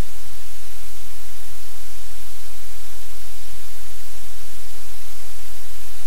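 Steady, loud hiss of noise with a low hum underneath, unchanging throughout, with no distinct events.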